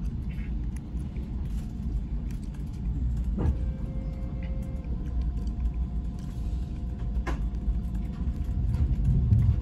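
Amtrak Acela train running on the track, a steady low rumble heard from inside the passenger car, with a couple of sharp knocks.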